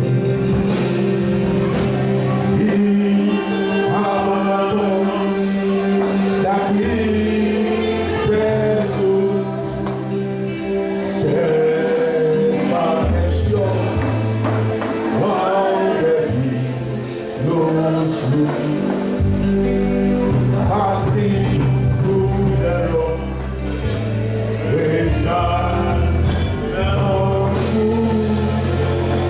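Gospel singing over instrumental backing with a steady, held bass line.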